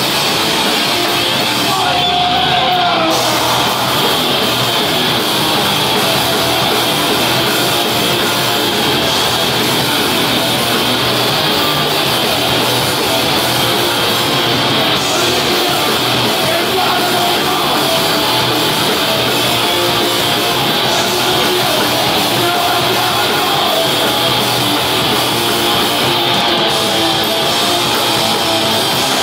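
A live band playing loud, heavy rock music led by electric guitar.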